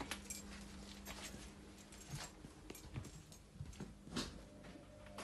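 Quiet footsteps of someone walking through a flat, heard as irregular soft knocks and clicks, with one sharper knock about four seconds in, over a faint steady hum.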